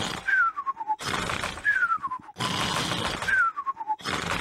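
Cartoon snoring from a sleeping piglet, repeated about three times. Each snore is a loud rasping snort on the breath in, then a thin whistle falling in pitch on the breath out.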